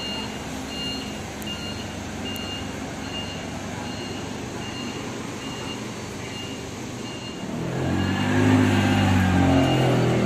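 Forklift backup alarm beeping steadily, about three beeps every two seconds, over the forklift's running engine. Near the end a forklift engine close by gets much louder as the machine drives with a load.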